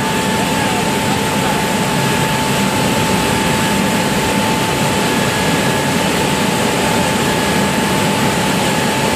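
Steady loud machinery roar of an aluminium vortex-well melting furnace, with a constant high whine running through it, while briquetted aluminium chips are fed into the molten metal.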